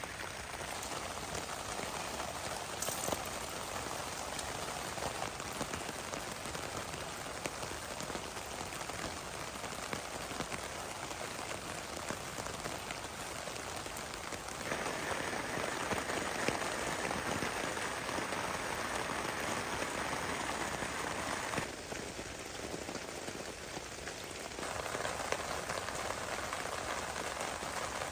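Heavy rain falling, a steady dense patter of drops. It gets louder about halfway through, drops back for a few seconds near the end, then picks up again.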